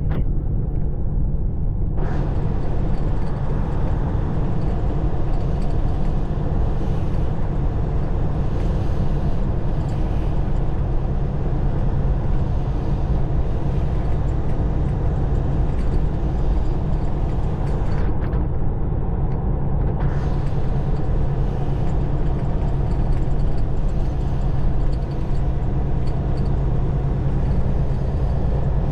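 Tractor-trailer driving on the road: a steady engine and road-noise drone.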